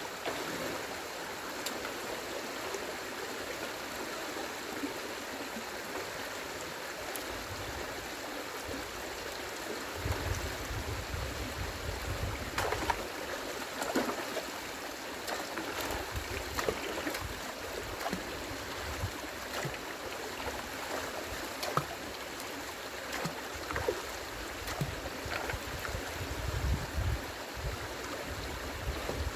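Rain-swollen stream water rushing steadily through a beaver dam. Scattered light knocks and clicks and a few brief low rumbles come in partway through.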